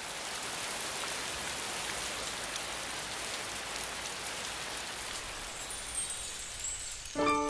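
Steady, even hiss of rain. Just before the end, music comes in with ringing, bell-like notes.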